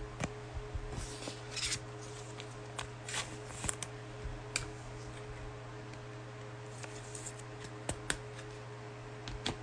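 Faint scattered clicks and a few short rustles of handling, over a steady low hum.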